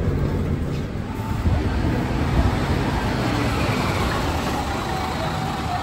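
Steady low running rumble and road noise of a Hino Blue Ribbon City Hybrid diesel-hybrid city bus, heard from inside while it drives.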